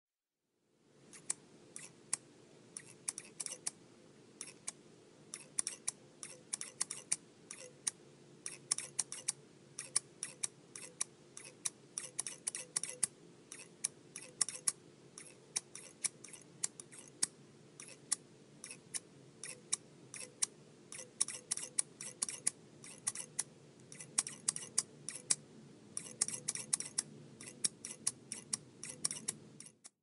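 Scissors snipping repeatedly: quick runs of sharp, crisp cuts with short pauses between them, over a faint steady background noise.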